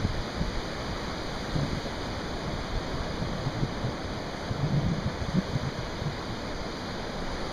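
Steady surf washing in on the beach, with wind gusting on the microphone about halfway through.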